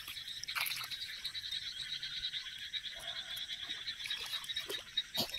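Frogs calling in a steady chorus, a dense, high-pitched trill of rapid pulses, with a few faint short clicks.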